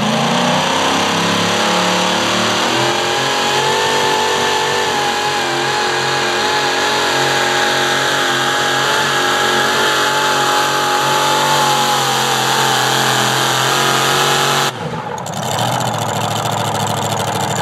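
The supercharged engine of a Pro Modified pulling tractor runs at full throttle under load through a pull. Its pitch climbs over the first few seconds, then holds steady. About fifteen seconds in, the throttle is cut and the engine drops suddenly to a lower, quieter run.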